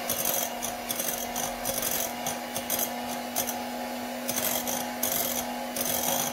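Electric hand mixer running at a steady speed, its beaters whipping a creamy mousse mixture in a glass bowl. A steady motor hum is overlaid with irregular high scraping as the beaters rub against the bowl.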